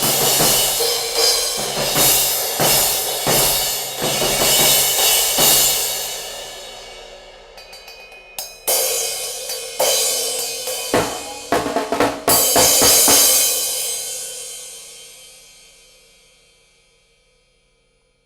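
Drum kit played: steady, busy cymbal and hi-hat work with snare and bass drum for about six seconds, easing off, then a handful of hard accented hits around the middle. The last crash rings on and slowly dies away at the end.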